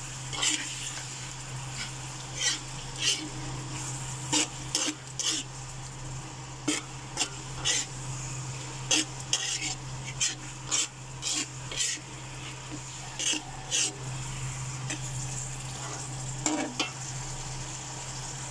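Metal spatula scraping and clinking against a wok as pork binagoongan (pork in shrimp paste) is stirred, with the oily sauce sizzling steadily underneath. The scrapes come irregularly, several times a second at busy moments.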